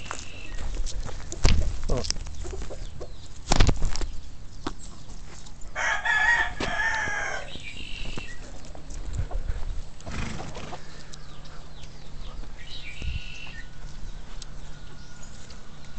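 A rooster crows once, a loud call of about a second and a half starting some six seconds in, with a shorter, fainter call near the end. Two loud thumps come in the first four seconds.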